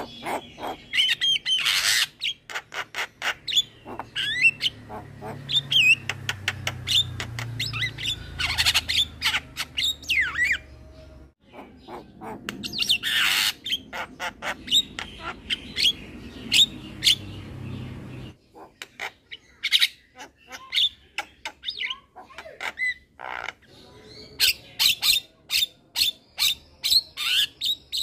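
Young male Javan myna (jalak kebo) singing: rapid runs of sharp clicks and chattering notes mixed with squawks and short whistled glides, broken by a brief pause about eleven seconds in. A low hum sits underneath through the middle part.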